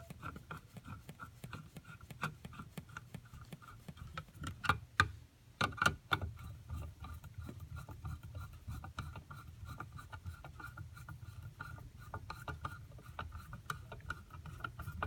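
Screwdriver driving the screws that hold a circuit board in its housing: a run of small clicks and rubbing, with a few louder knocks about five and six seconds in.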